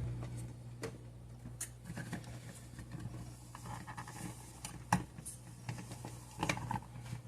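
Faint kitchen handling noises: scattered light clicks and small knocks over a low steady hum. The sharpest knock comes about five seconds in, and a short cluster of rustling and clatter comes near the end.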